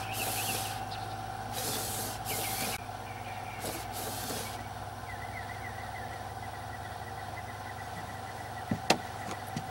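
A boat's electric windshield wiper motor running on test, sweeping the wiper arm back and forth with a steady hum. Bursts of hiss come in the first half, and a sharp click about nine seconds in.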